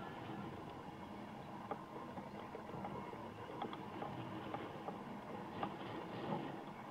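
Outdoor soccer match ambience: a steady noisy rush with faint short knocks and clicks scattered through it.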